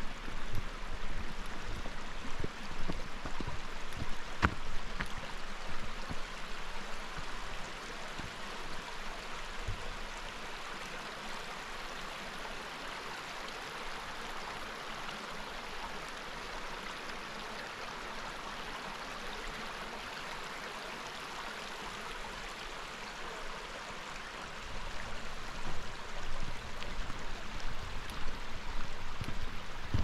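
A stream running over rocks, a steady rush of water. Irregular low thumps come through in the first several seconds and again near the end, with one sharp click about four seconds in.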